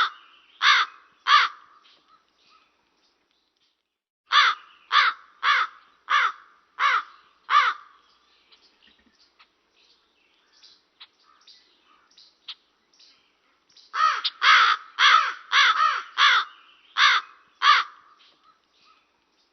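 A corvid cawing: harsh, repeated caws in runs, two near the start, a run of about six a few seconds in, then a quicker run of about eight near the end, with only faint clicks in the pause between.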